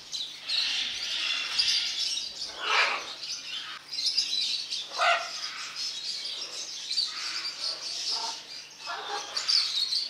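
Parrots chirping and chattering, many calls overlapping, with a few louder calls about three and five seconds in.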